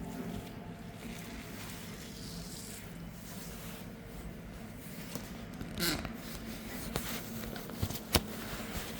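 Quiet room noise with a brief scrape about six seconds in and a few sharp light clicks after it, the loudest near the end.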